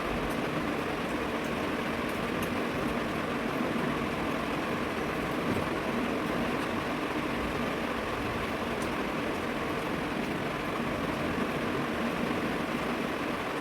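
A steady, even mechanical whirring hum with a few faint light clicks.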